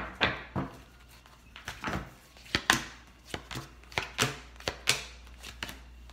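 Tarot deck being shuffled and handled: a run of sharp, irregular card clacks and taps, several a second.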